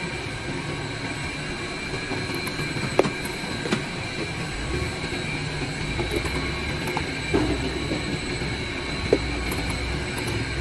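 Automatic laundry soap machine running steadily with a thin high whine, and a few sharp mechanical clicks at uneven intervals as its dies and pushers work.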